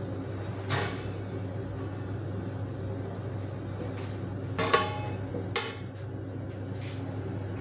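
A steady low mechanical hum runs through a kitchen, with three short metal clinks of a utensil against a steel pan: one about a second in, and two close together around five seconds in, the first of these ringing briefly.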